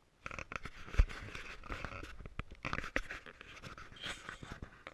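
Rustling, scraping handling noise on the camera microphone, with many small clicks and a loud thump about a second in.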